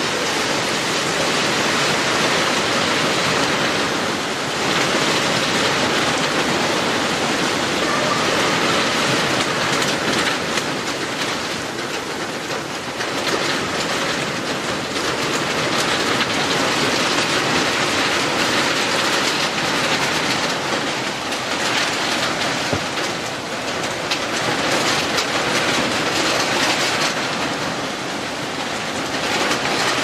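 Heavy rain pouring down steadily: a dense, loud hiss that swells and eases slightly every few seconds.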